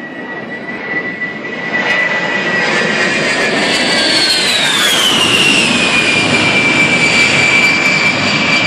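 A-10 Warthog's twin turbofan engines whining as it flies past, over a broad jet rush that builds over the first couple of seconds. About four to six seconds in, the whine falls steeply in pitch as the jet passes.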